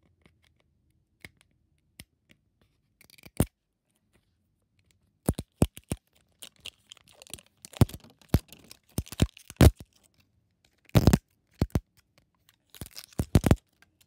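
Wrapping of an L.O.L. Surprise toy ball being peeled and torn off in strips: sharp crackles and short rips, sparse at first and coming thick from about five seconds in.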